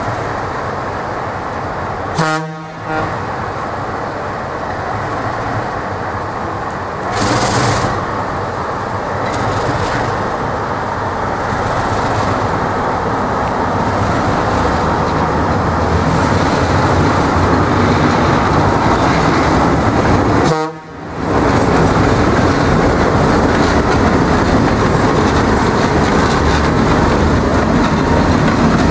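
Diesel locomotives running steadily while shunting, with the yellow EFE locomotive D-16012 rolling past close by near the end, a little louder after the second of two brief dropouts. A horn toots.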